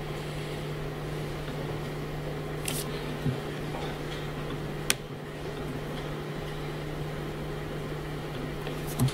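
Room tone with a steady low hum and background hiss, broken by a few short clicks, the sharpest about five seconds in.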